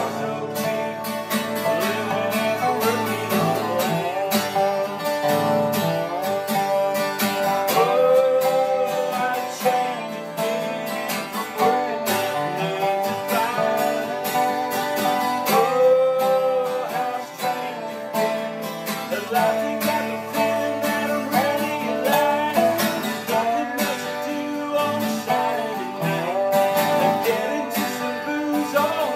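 Two acoustic guitars playing together: one strummed for rhythm, the other played flat on the lap with a slide bar. The slide guitar carries the melody in gliding notes that bend up and down in pitch.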